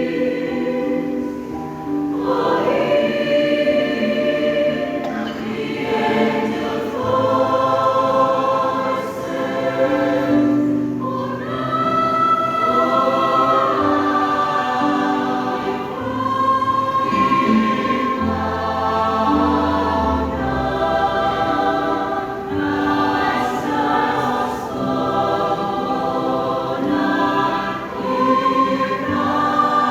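Church choir singing a gospel song, holding long sustained chords that change every second or two.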